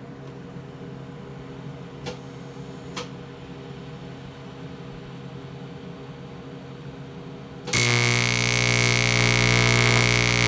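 Low steady electrical hum, then about three-quarters of the way through a Miller Econotig's AC high-frequency TIG arc strikes on aluminum plate with a loud, harsh buzz. The buzz carries a steady high whine and holds for a few seconds. The current is turned all the way up, yet the arc only sizzles the aluminum without forming a molten puddle.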